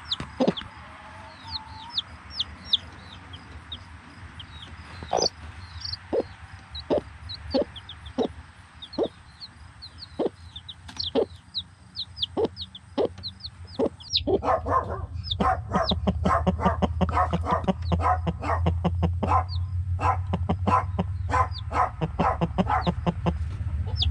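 Mother hen clucking to her chicks, under a week old, which peep in short, high, falling chirps. About fourteen seconds in the sound grows louder, with quicker, closely spaced clucks over a low rumble.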